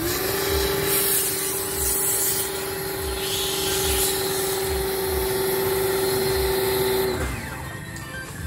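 Background music with a steady low beat. Over it, a steady hum starts at once, rises slightly in pitch, holds, and cuts off suddenly about seven seconds in.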